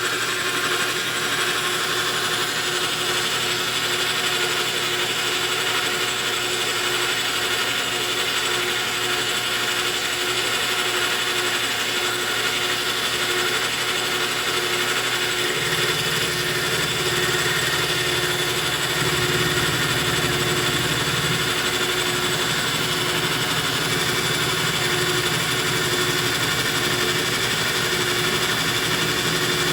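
Lathe running steadily through a face-milling pass on a copper bolt: an even machine whine with a steady tone, and a low hum that grows heavier about halfway through.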